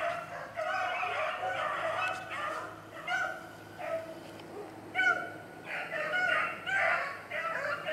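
A pack of rabbit dogs baying and yelping, many calls overlapping, while they run a rabbit on the scent. The calls go quieter for a moment around the middle.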